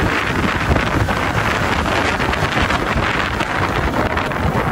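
Wind rushing and buffeting over the microphone of a moving motorcycle, a steady dense rush with the bike's running noise underneath.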